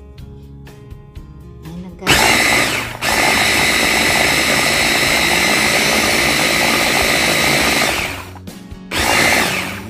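Electric mini food chopper whirring as it blends a coriander and tahini dressing, run in three presses: a short burst about two seconds in, a long run of about five seconds that winds down, and another short burst near the end.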